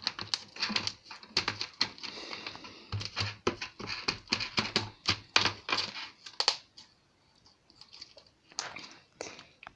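Slime being squeezed and worked by hand, popping and crackling in quick irregular clicks, with a short lull before a few last pops near the end.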